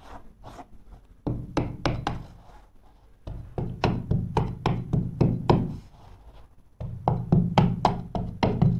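A hand-held bolster pushed again and again along the carpet's edge against the skirting board, tucking the carpet into the gap: bursts of sharp knocks, three or four a second, with short pauses about a second in, around three seconds in and around six seconds in.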